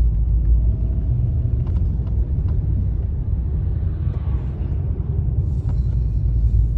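Steady low rumble of a vehicle driving on the road, engine and tyre noise.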